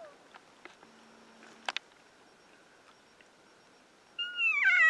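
Elk cow mew: a loud, high call that slides steeply down in pitch, starting near the end. Before it, a faint single click.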